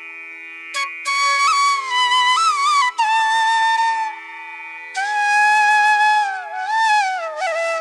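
Background music: a melody with sliding, ornamented notes in two phrases over a steady drone.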